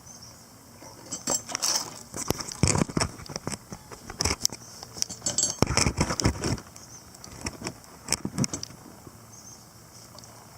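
Metal camp cookware being handled: a run of irregular clinks, knocks and scrapes, thickest through the middle.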